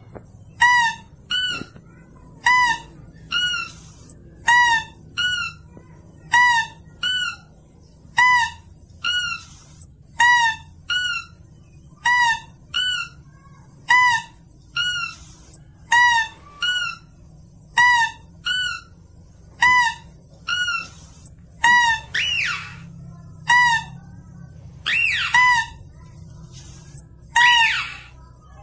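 Mouse-deer (kancil) lure call: short, shrill squeaks in pairs, a lower note followed by a higher one, repeating about every two seconds. In the last third, a few longer falling squeals join in.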